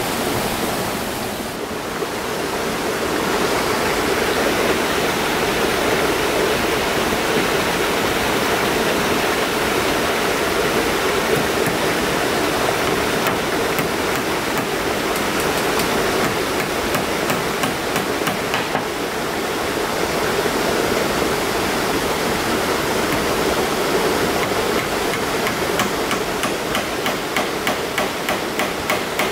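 Hammer striking nails into a wooden board roof: scattered blows, then a steady run of about two or three a second near the end. A steady rush of running water underlies it.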